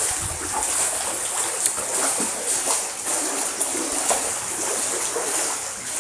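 Steady splashing and churning of pool water around a Boston terrier paddling, with a few small splats.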